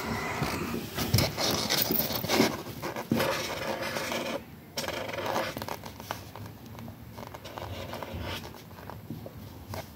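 A sheet of paper rustling and scraping as it is handled. It is louder for the first three seconds, then softer.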